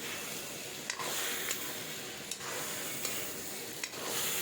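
Jackfruit and chopped tomatoes frying and sizzling in hot oil in a pan while being stirred with a spoon. The hiss swells with each stirring stroke, and the spoon clicks against the pan five or six times.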